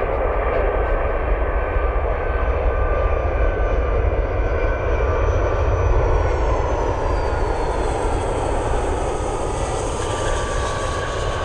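Boeing 757 airliner landing, its jet engines giving a steady deep roar with a whine. Past halfway, as it flies past and touches down, the high whine falls in pitch.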